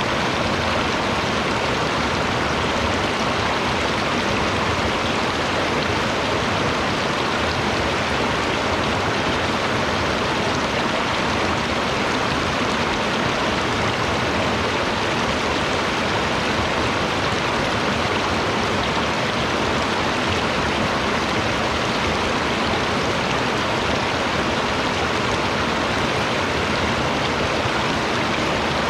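Running water, like a forest stream, making a steady, even rush with no distinct splashes or other events.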